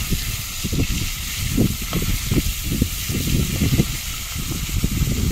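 Strong, storm-like wind buffeting the microphone as an irregular low rumble in gusts, over a steady hiss.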